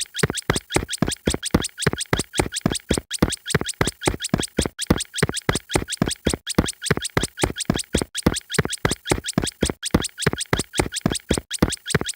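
A short, scratch-like sound effect looped over and over: rapid strokes, about six a second, with a tiny gap each time the loop restarts, roughly every 1.7 seconds.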